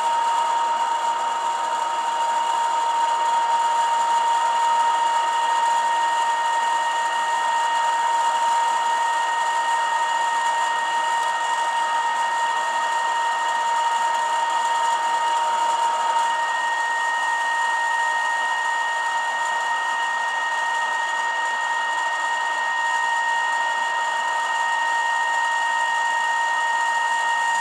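AM test tone from a signal generator, demodulated by a TTI multinorm CB radio receiver and played through its external speaker lying face down: a steady single-pitch tone over hiss, with a fainter overtone about an octave up coming in about halfway through. It is the recovered audio being peaked while the receiver's stages are tuned for maximum output.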